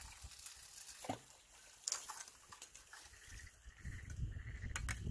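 Faint scattered clicks and knocks of a surf-casting rod and spinning reel being handled just after a cast, with a low rumbling handling noise setting in about four seconds in.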